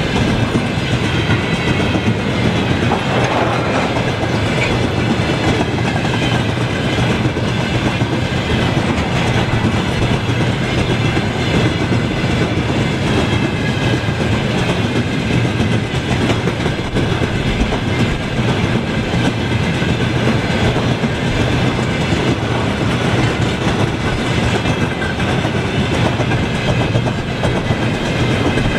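Freight train rolling steadily past, its wheels clacking over the rail joints.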